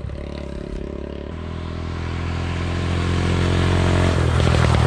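Straight-piped two-stroke Suzuki quad bike engine running at a steady note and growing louder as it approaches. Its note turns rougher and shifts near the end as it draws close.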